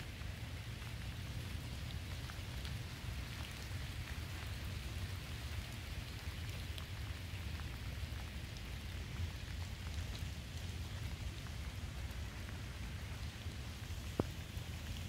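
Steady rain falling, with faint scattered drop ticks over a low steady rumble, and one sharp click near the end.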